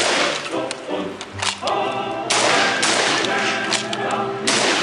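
Background music with heavy, hard-hitting drum beats over a sustained pitched part.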